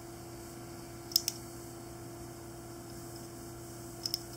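Light clicks of hands handling a metal fly reel: two quick clicks about a second in and two more near the end, over a steady electrical hum.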